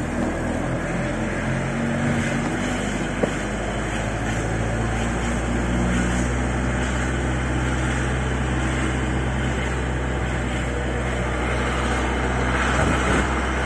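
Camper van driving on the road, heard from inside the cab as a steady drone of engine and road noise. The engine note changes about five seconds in and then holds steady.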